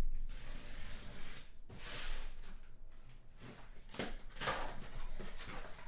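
Cardboard master case of trading-card boxes being opened and handled: a few rubbing, scraping strokes of cardboard and packing, each lasting about a second.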